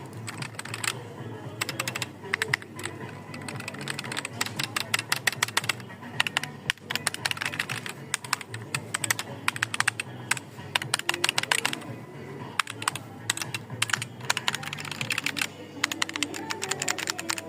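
Fast typing on a Rampage mechanical keyboard with linear red switches: rapid runs of key clacks in bursts, with short pauses between them, over faint background music.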